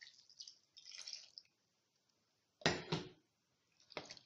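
Salted pork belly being washed by hand in a basin of white wine: faint wet splashing and dripping, with two louder splashes close together about three seconds in.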